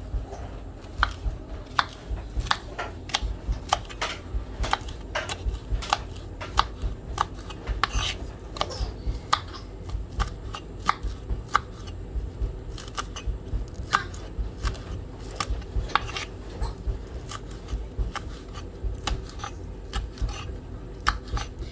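Knife chopping scallions (spring onions), a steady run of uneven taps, about two a second.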